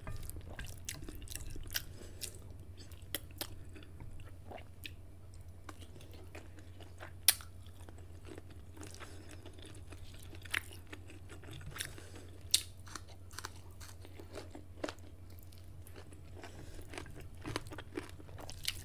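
Close-miked mukbang eating sounds: chewing of noodles and crunching of kimchi, with scattered sharp clicks and smacks, the loudest about seven and twelve and a half seconds in. A steady low hum runs underneath.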